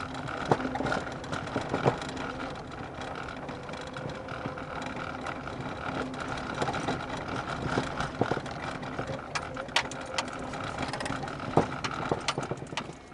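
Inside a Lada Kalina on a rough road: steady engine and road noise with sharp knocks from the front suspension every few seconds, most noticeable about two seconds in and near the end. The knock is an unexplained fault that the owner first suspected was the steering rack, and it has persisted after he replaced ball joints, a tie-rod end, control arms and stabilizer links.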